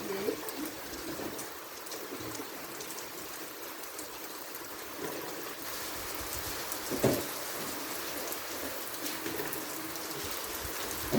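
Steady rain falling, an even hiss, with one short knock about seven seconds in.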